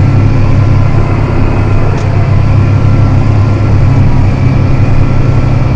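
John Deere 7280R tractor's six-cylinder diesel engine running steadily under load while pulling a plow: a loud, even low drone.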